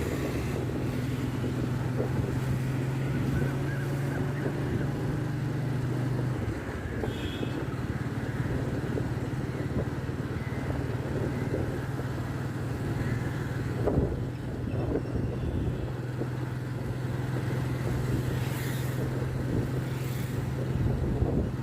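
Road vehicle engine running at a steady speed, a constant low drone with road and traffic noise, and a single sharp thump about midway.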